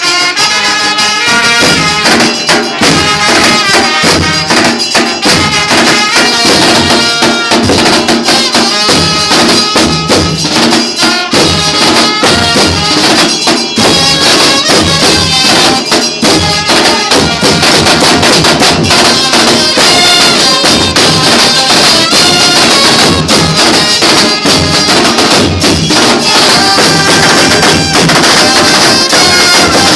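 Band music with a steady, busy percussion beat under a sustained melody line, played loud throughout.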